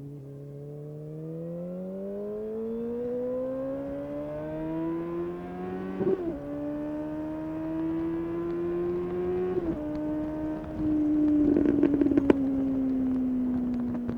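Suzuki GSX-S750 inline-four running through an open Yoshimura SQ11 exhaust with no dB killer and the catalytic converter removed, accelerating: the engine note climbs, drops at two upshifts, then holds and eases off. Near the end there is a short burst of crackling, the loudest part.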